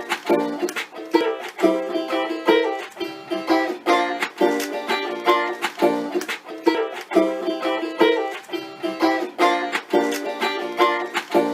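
Instrumental title music played on plucked strings: a quick run of plucked notes in a steady rhythm, with little or no bass.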